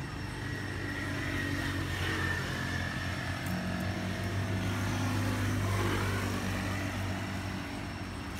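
A motor vehicle engine running unseen, a steady low hum that grows louder toward about six seconds in and then eases off as it passes.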